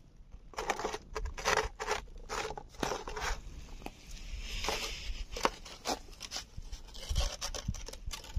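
A cat chewing food, a run of short, irregular wet crunches about two or three a second.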